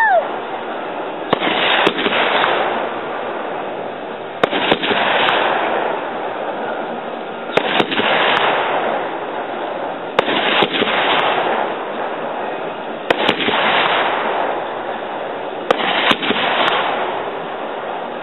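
Consumer aerial fireworks bursting overhead about every three seconds, about seven times. Each sharp bang is followed by a second or two of crackling.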